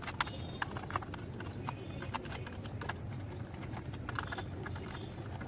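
Screwdriver working the small screws and nuts of a toy excavator: irregular light clicks and taps, thickest in the first couple of seconds.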